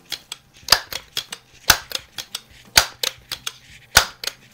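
Crosman Model 1400 .22 multi-pump air rifle being pumped: four sharp clacks about a second apart as the pump arm is worked and snapped shut, with lighter mechanical clicks in between.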